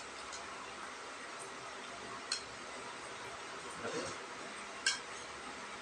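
Spoon or utensil clinking against a bowl a couple of times during a meal, sharp short clinks over a steady low hiss.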